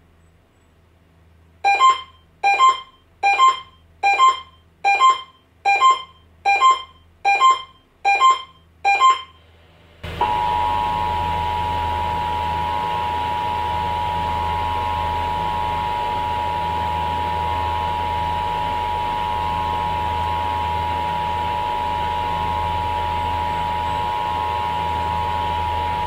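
Emergency Alert System broadcast test: ten short electronic beeps, a little under one a second, then the EAS attention signal, a steady two-tone alert tone held for about sixteen seconds over broadcast hiss.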